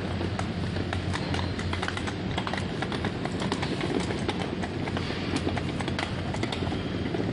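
Rapid, irregular clicking and tapping of movement across a tiled supermarket floor, several clicks a second, over a steady low hum.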